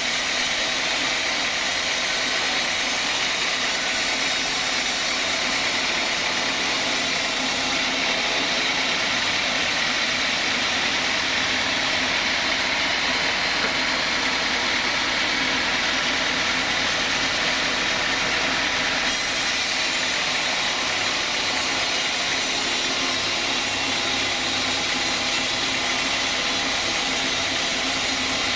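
Sawmill saw running steadily, a loud, even machine noise without breaks; the high hiss thins out for a stretch in the middle.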